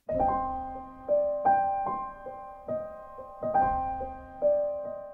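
Title-card music: a short solo piano phrase starting abruptly, its notes struck about every half second, each ringing out and fading.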